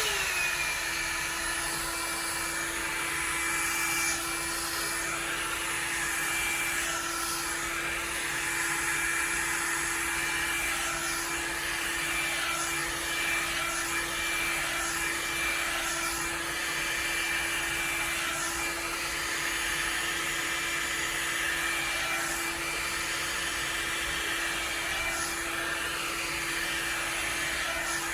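Revlon One-Step hair dryer brush switched on right at the start, then blowing steadily with a rush of air and an even motor whine.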